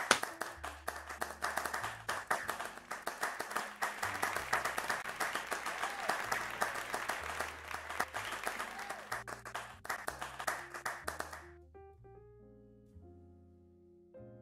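Applause over background piano music with a stepped bass line; the clapping cuts off suddenly about eleven and a half seconds in, leaving the piano alone.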